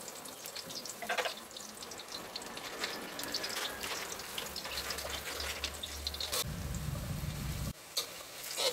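Chopped shallots sizzling and crackling in hot oil in a wok, with a low rumble that cuts off suddenly near the end and a scrape of the spatula stirring them.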